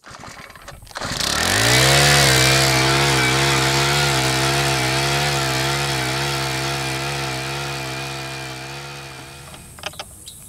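A small engine revs up about a second in and runs steadily at high speed with a slight waver in pitch, fading away near the end.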